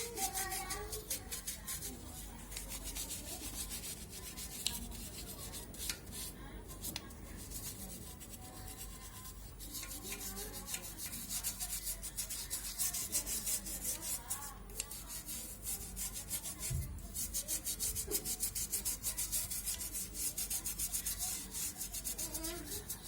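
Fast, rhythmic scrubbing strokes, several a second, like a stiff brush worked back and forth over a surface, with short pauses about six seconds in and again around the middle.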